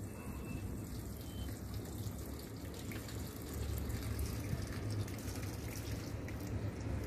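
Water pouring steadily from a plastic watering can through its rose onto the potting soil of a potted plant.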